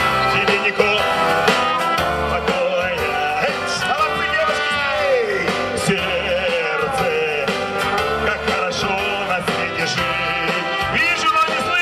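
Live amplified music through stage loudspeakers: a man sings into a microphone over a band that includes trumpets.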